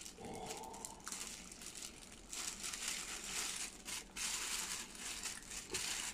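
Black tissue paper rustling and crinkling as it is unfolded by hand, in irregular rustles that grow louder from a little over two seconds in.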